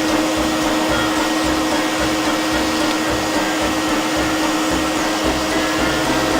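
Bee vacuum running steadily as it sucks up a honeybee swarm, a constant motor hum over an even rushing noise.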